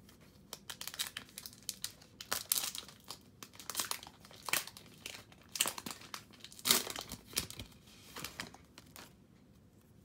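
Crinkling and rustling in irregular bursts, with many sharp clicks, stopping about nine seconds in.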